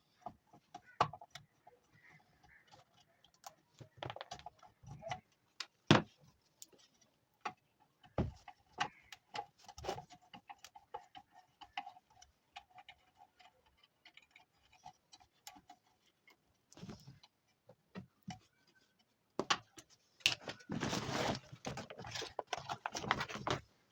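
Irregular clicks and knocks of small hard objects being handled, with a denser rattle lasting a few seconds near the end.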